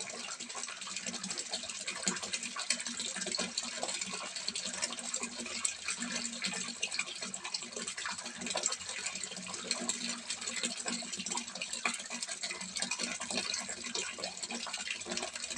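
Water pouring from a spout into a small fish pond, splashing and trickling steadily, with a faint low hum underneath.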